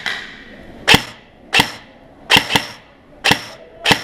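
ARP 556 electric airsoft rifle firing single shots: six sharp cracks, unevenly spaced about half a second to a second apart, two of them in quick succession in the middle.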